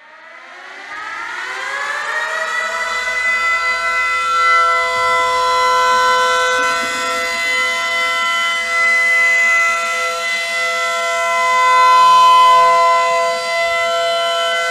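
Ballpark home-run siren winding up over about two seconds, then holding a loud, steady chord of several tones.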